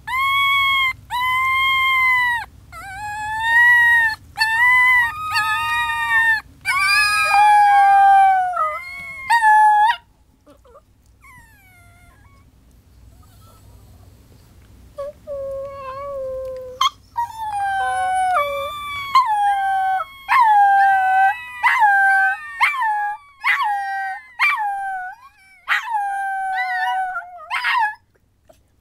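Young Miniature Pinscher puppies howling, their first attempts at it: a run of short, high howls that waver and fall in pitch. About a third of the way in the howling breaks off into a few seconds of faint whimpers, then starts again past the middle and goes on until near the end.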